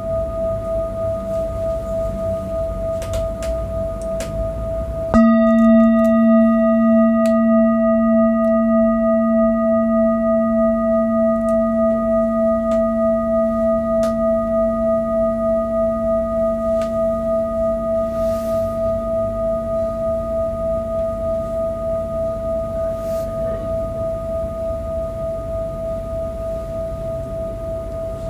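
Large metal singing bowl ringing with a steady pulsing tone. It is struck again about five seconds in, which adds a deep low note and higher overtones under and over the first tone, and the whole chord then rings on and slowly fades.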